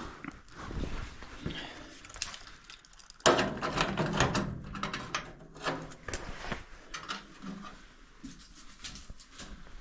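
Clicks, scrapes and knocks of hand-tool work on the screws joining the furnace flue pipe to the draft inducer housing, busiest from about three seconds in.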